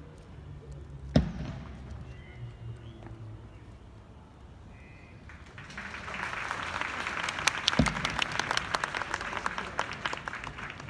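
A single sharp knock about a second in, then crowd applause starting about halfway through and dying away near the end.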